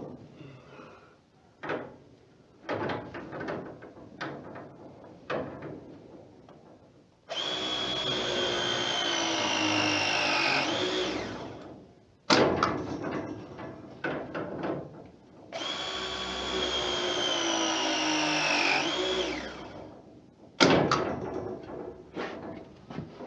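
Battery-powered pipe press tool crimping press fittings twice, each press a motor whine of about four seconds that sinks in pitch as the jaws close, then sweeps up sharply and cuts off. Light clicks and knocks of the tool being handled come between the presses.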